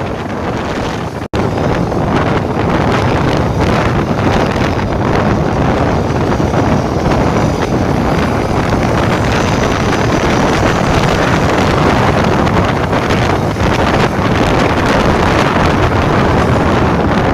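Loud wind rushing over the microphone, mixed with the road and engine noise of a moving coach bus. The sound cuts out for an instant about a second in.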